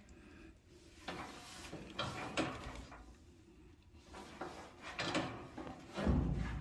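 Scrapes and knocks from a clothes dryer's new drum belt and idler pulley being fitted by hand inside the dryer cabinet, with a heavier low thump near the end.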